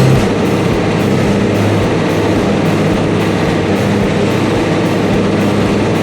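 Tractor and large square baler working in a hayfield: a loud, steady, dense machinery noise.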